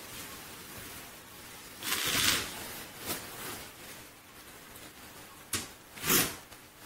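Short rustling, scraping noises from an object being handled and moved around puppies in a whelping box. The loudest comes about two seconds in, with another just after six seconds that follows a sharp click.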